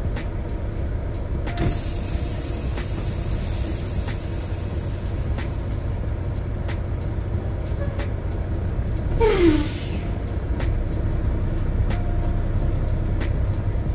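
Semi-truck's diesel engine running steadily, heard from inside the cab, with faint ticking about every second and a half. A hiss rises for a few seconds near the start, and a short falling squeal comes about nine and a half seconds in.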